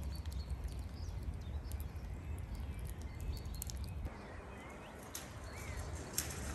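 Quiet outdoor ambience: a low steady rumble, scattered faint ticks, and a bird chirping now and then.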